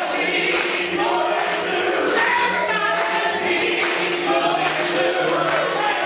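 Several voices singing a song together with musical accompaniment, steady and fairly loud.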